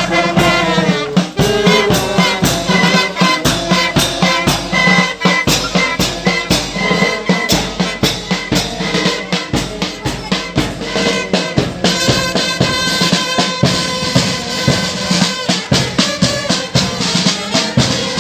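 Marching band of brass and saxophones playing a march over a steady beat of bass drum and snare drum.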